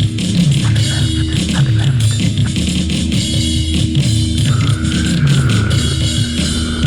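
Heavy metal music: a chugging, distorted guitar riff over drums, with a held, wavering high note coming in about two-thirds of the way through.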